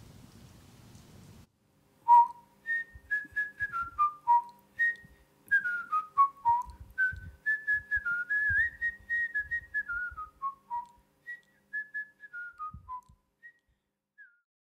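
A short tune whistled in single clear notes, mostly falling in step-wise runs, with a faint steady hum beneath it. It starts about two seconds in after a brief silence and ends shortly before the end.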